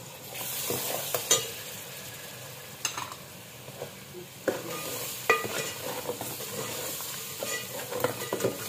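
Onions, tomatoes and spice paste sizzling in a metal pot while a metal ladle stirs them, with sharp clinks and scrapes of the ladle against the pot every second or two.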